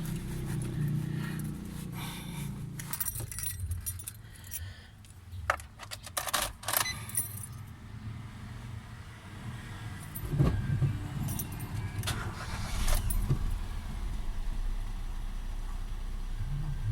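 Car keys jangling and clicking, then about ten seconds in the 2019 Nissan Almera's engine starts and settles into a steady idle.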